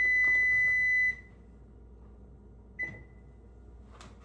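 Oven's electronic alert tone signalling that preheating is done: a steady high beep that cuts off about a second in, followed by one short beep near the three-second mark.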